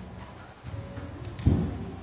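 A single dull, low thump about one and a half seconds in.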